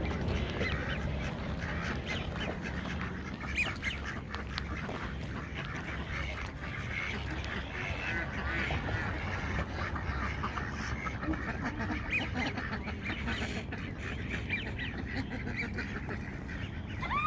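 A group of ducks calling, many short quacks overlapping throughout, over a steady low rumble.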